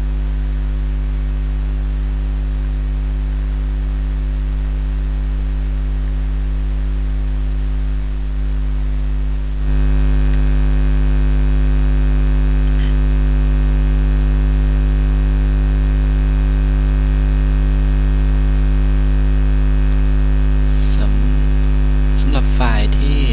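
Steady, loud electrical mains hum with a buzzing row of higher overtones. It steps up a little louder about ten seconds in. Near the end a few faint voice sounds break through.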